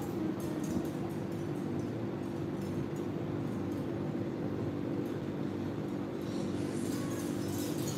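Steady low hum of room noise, unchanging throughout.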